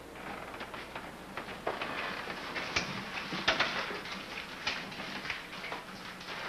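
Footsteps and scattered small knocks and clicks at irregular intervals, loudest at about three and three and a half seconds in, over a faint steady hiss.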